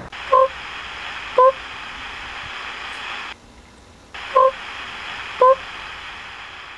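Radio static hiss with short beeps, like a space-mission radio transmission. Two beeps come about a second apart, then the hiss cuts out briefly, then two more beeps come about a second apart.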